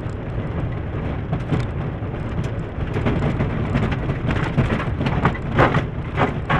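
Inside a Suzuki Swift GTI rally car on a loose gravel track. The engine runs steadily under a hiss of tyres on gravel, while stones and grit clatter against the underbody and wheel arches. The knocks come more often and louder in the last two seconds or so.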